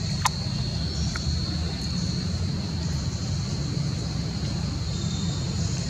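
Steady outdoor background noise: a constant low rumble like a motor running, under a thin, steady high-pitched buzz, with one sharp click about a quarter second in.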